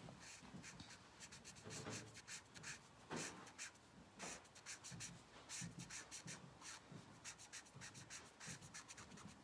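Faint scratching of a blender pen's felt tip scrubbing on cardstock in many short, quick strokes, to soften where two marker colours join.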